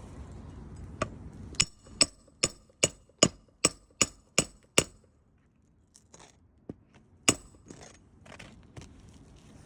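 Hammer striking metal with ringing blows: one blow, then a quick run of about nine blows, two or three a second, and one more blow a couple of seconds later.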